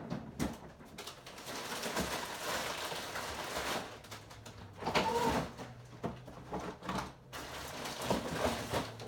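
Kitchen handling noise as ingredients go into a blender jar: a few seconds of rustling, scattered light knocks, and a short pitched tone about five seconds in.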